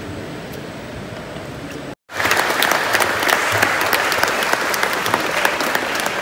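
Quiet steady background noise, then, after a brief dropout about two seconds in, a crowd applauding, many hands clapping at once.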